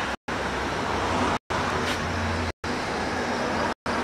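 Steady low engine rumble under a wide, even noise, broken by brief total dropouts about every second and a quarter.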